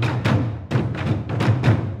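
Background music: a fast, steady percussion beat over a low drum, with a short break near the end.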